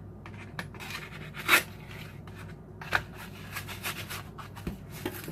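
Rustling and crinkling from handling a foil-wrapped block of cream cheese, with a sharper rustle about a second and a half in and a click near three seconds.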